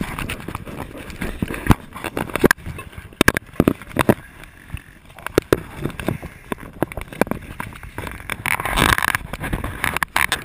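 Firefighter's turnout coat and breathing-apparatus hose rubbing and knocking against a body-worn camera as he moves, an irregular run of scrapes and thumps.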